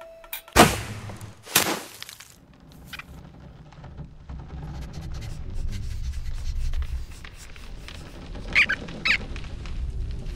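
Animated-film sound effects: two sharp hits about a second apart, then a low rumble that slowly builds, with two short squeaks near the end.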